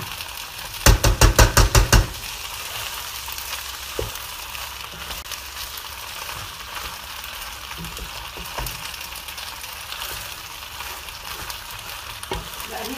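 Pasta and white Nablusi cheese sizzling in a pan as a wooden spoon stirs them. About a second in, a quick run of about seven loud knocks.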